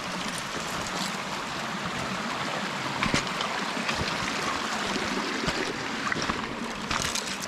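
A hillside burn (mountain stream) rushing over rocks, a steady wash of water, with a few footsteps and rustles from walking along a leafy, overgrown path.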